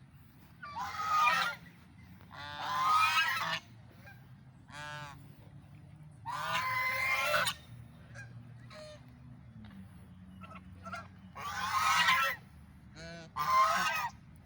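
Large waterfowl honking loudly: six harsh calls, each about half a second to a second and a half long, with a quieter pause in the middle.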